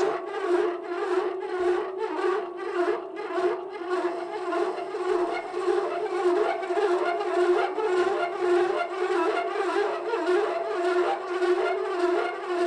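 An upside-down lathe parting tool cuts a groove in a spinning cast-iron cylinder, chattering with a steady, held, horn-like drone. The drone is the sign of the tool vibrating in the cut.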